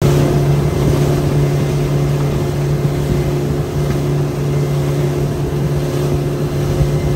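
Boat's outboard motor running steadily at cruising speed, a constant drone over the rush of the wake and air past the boat.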